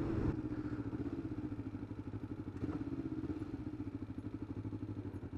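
Kawasaki GPZ500S parallel-twin engine running steadily at a constant throttle as the motorcycle cruises, with a fast even pulse.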